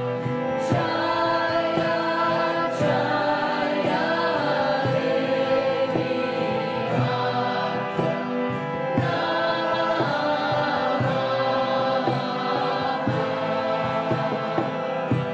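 Background music with choir-like singing on long, held notes.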